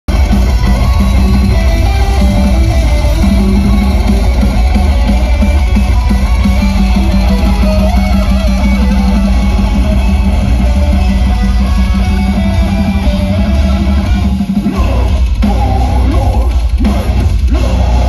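Metalcore band playing live and loud, with distorted electric guitars and a pounding drum kit heard from within the crowd. About fifteen seconds in, the music turns to a choppier, stop-start section.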